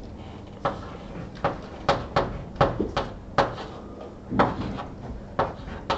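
Chalk writing on a blackboard: about ten sharp, irregular taps and short strokes as the chalk strikes and drags across the board.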